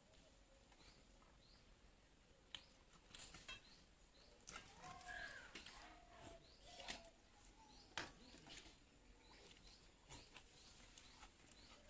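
Faint small birds chirping over and over, with a few short bird calls and scattered light clicks.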